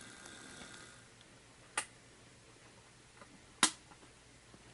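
Two sharp, satisfying clicks about two seconds apart from the switch on a Walthers model-train power pack, with a fainter tick between them. A faint hum fades away in the first second.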